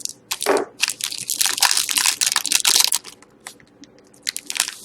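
Plastic wrapping crinkling and crackling as a sealed hockey-card box is torn open by hand, followed by a few small clicks and rustles.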